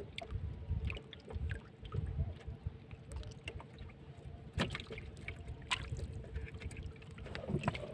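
Sea water lapping and trickling against the hull of a small outrigger boat, with scattered light knocks and two sharper clicks around the middle.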